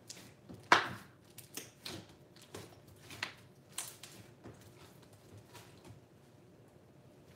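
Slime being folded and pressed by hand, giving off sharp, irregular clicks and pops of trapped air. The loudest pop comes about a second in, and the pops thin out after about five seconds.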